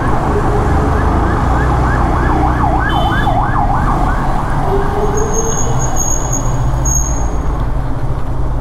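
Electronic siren giving quick rising whoops, about four a second, that turn into a wider up-and-down wail around three to four seconds in and then fade, over a motorcycle engine running at low speed.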